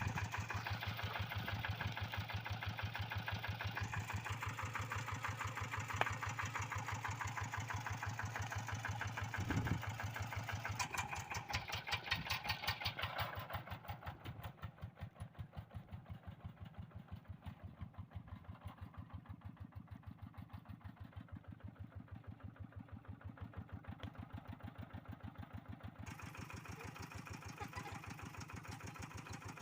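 Kubota RD85DI single-cylinder diesel engine of a Quick G1000 hand tractor running with an even, steady beat. It gets noticeably quieter about halfway through and stays lower, picking up a little again near the end.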